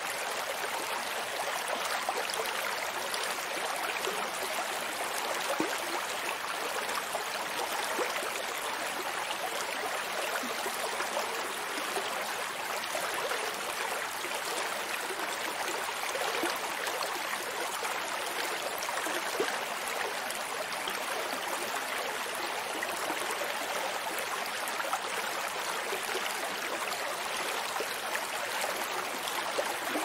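Water flowing and trickling steadily, an even bright wash with fine crackle and no deep rumble.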